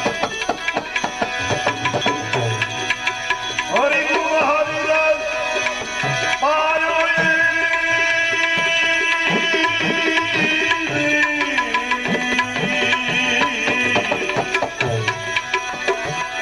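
Instrumental break in a Gujarati devotional bhajan: tabla plays a steady, busy rhythm with deep bass strokes under a held melody line that slides up into its notes.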